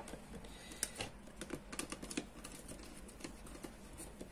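Faint, irregular clicks and taps of wires and a small screwdriver being worked into the terminals of a plastic wall switch.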